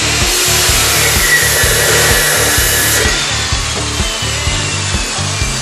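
Hitachi abrasive cut-off saw grinding through a steel car timing chain: a steady harsh grinding that eases a little about halfway through.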